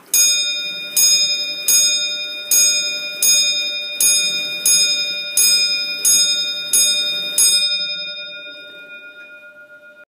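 A William Bird of Seagrave thirty-hour longcase clock, made around 1760, striking eleven on its bell: eleven evenly spaced blows about three-quarters of a second apart, the last one ringing on and slowly fading.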